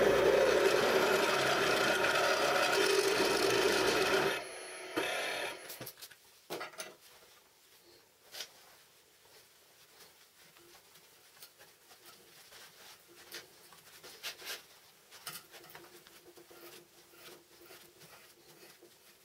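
Step drill bit cutting through steel angle iron in a drill press, a loud steady grinding that stops about four seconds in. After that come faint scattered clicks and scraping from a hand tap being turned in a tap wrench to cut threads in the hole.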